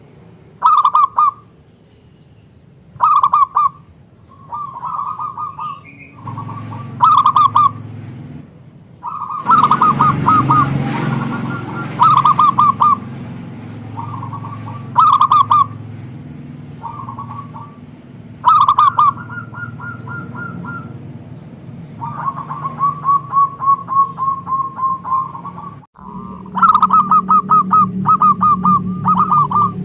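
Zebra doves (perkutut) cooing in repeated bouts, each a quick run of staccato notes that comes back every couple of seconds over a low background hum.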